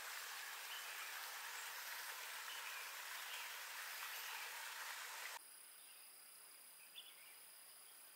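A steady, even rush of water noise that cuts off abruptly about five seconds in. After it comes quieter forest ambience with a steady high insect trill.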